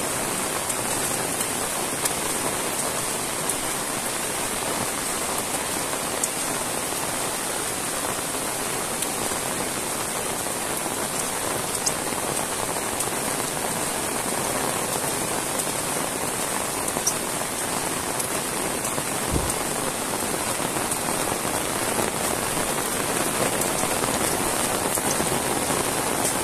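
Heavy rain falling steadily on leaves, grass and a flooded footpath: a dense, even hiss with scattered sharper drop ticks. One brief low bump about three-quarters of the way through.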